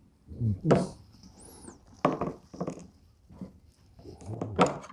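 Eating sounds: a spoon clinking and scraping against a bowl while mixing and eating bibimbap, with chewing, in a few separate sharp strokes.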